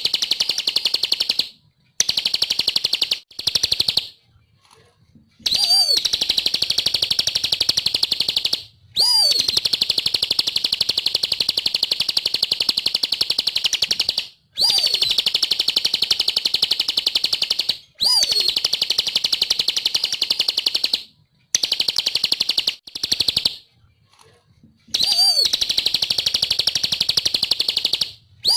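Bar-winged prinia (ciblek) singing loudly: phrase after phrase of a fast, high trill, each opening with a sharp downward-sweeping note and lasting one to five seconds, with short pauses between.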